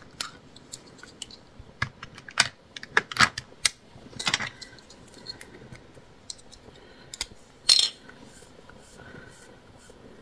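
Sharp clicks and clatter of small plastic ink-pad cases handled in a metal tin, their lids snapped open and shut, thickest in the first half with a louder click later on. Between them, faint dabbing of a foam applicator on a stencil.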